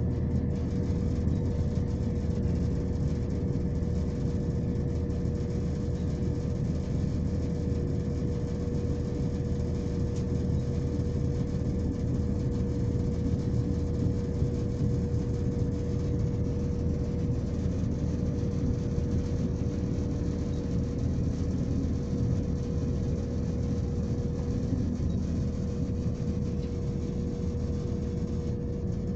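Cabin noise inside a ScotRail Class 170 Turbostar diesel multiple unit drawing into a station: a steady low rumble from the underfloor diesel engines and running gear, with a constant mid-pitched hum.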